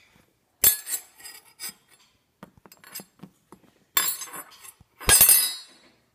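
Small hard objects clinking and clattering against a hard surface in three bursts: about half a second in, at around four seconds, and around five seconds, the last the loudest, with a dull thump under it.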